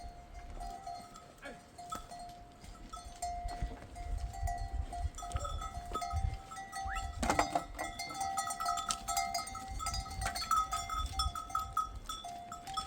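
Bells on a grazing flock of sheep and goats clinking and ringing on and off. A louder burst comes a little past halfway, over a low rumble.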